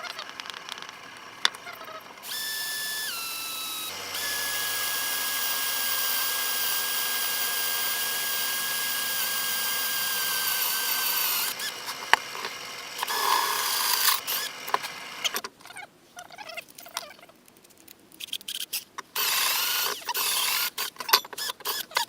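A small electric power tool runs with a steady high whine, first a short burst that drops in pitch, then a long run of about seven seconds that slows and stops, followed by short bursts and clicks. It is cutting a blanking gasket out of sheet metal.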